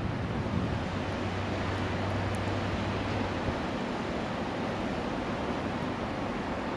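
Steady wind rushing during a snowstorm, buffeting the microphone, with a low hum underneath that fades out about halfway through.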